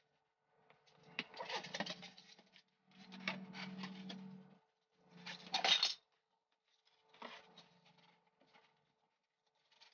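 Aerosol spray adhesive hissing onto foam sheets in short bursts: three strong sprays in the first six seconds and a weaker one about seven seconds in, over a faint steady hum.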